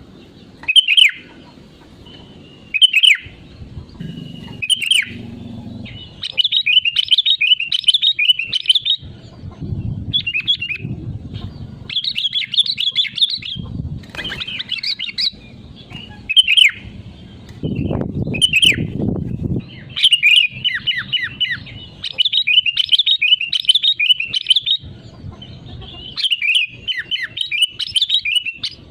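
Sooty-headed bulbul singing: a few loud, short calls about every one to two seconds at first, then long runs of rapid chattering song. Low rustling and bumping sound underneath at times, most strongly just before two-thirds of the way through.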